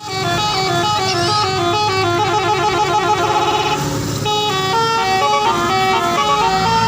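Indonesian bus 'basuri' telolet musical horn playing a quick tune of short, stepped notes, with a brief break in the melody about four seconds in.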